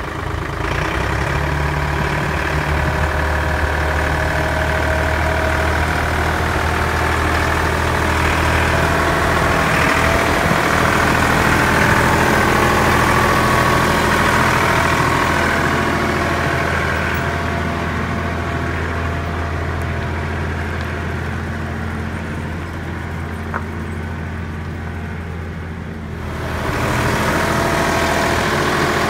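Kioti tractor's diesel engine running steadily as it drives past pulling a loaded log trailer, louder as it comes close, then easing off. Near the end the sound changes abruptly to a closer, steady engine note.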